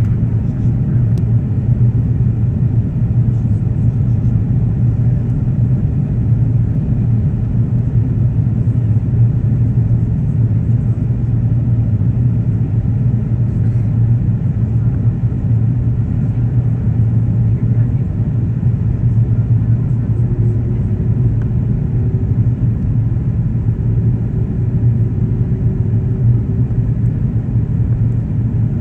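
Steady low rumble of an airliner's cabin noise, jet engines and airflow heard from a window seat during the descent to land. A faint thin hum joins in about two-thirds of the way through.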